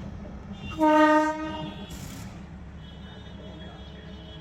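Darjeeling Himalayan Railway toy train sounding one loud blast of its horn about a second in, over the steady low rumble of the moving train; a short hiss follows.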